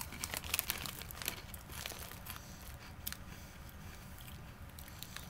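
Crunchy corn snack sticks being chewed, with the snack bag crinkling: a run of sharp crackles over the first three seconds or so, then fainter.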